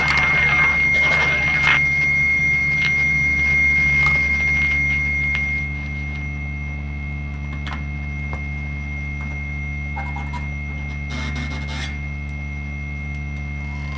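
Live experimental electronic noise improvisation: a steady low drone and hum under a held high whistling tone. The tone drops away after about five seconds and the sound gets quieter. Scattered clicks run through it, with a short burst of hiss a couple of seconds before the end.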